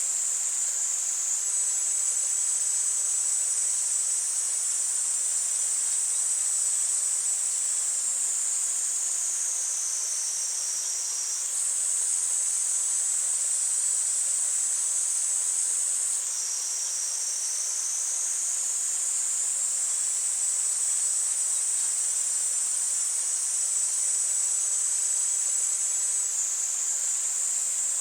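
Cicadas singing in a continuous high-pitched chorus, its pitch dipping slightly and jumping back twice near the middle, over faint flowing stream water.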